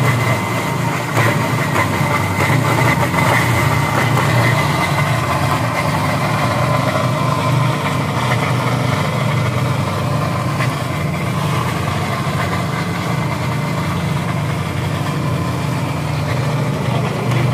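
A stainless-steel Blaze Machinery high-speed wet grinder (chutney machine) runs steadily with a constant hum. Its spinning blade grinds whole tomatoes into a liquid paste.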